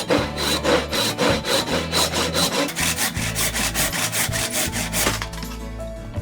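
Rapid back-and-forth scraping strokes of a hand tool, about four a second, stopping about five seconds in, over background music.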